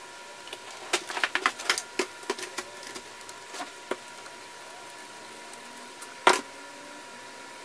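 Rapid clicks and knocks of metal parts being handled as the twist-throttle grip is worked off an outboard motor's tiller handle, with scattered ticks afterwards and one loud knock about six seconds in.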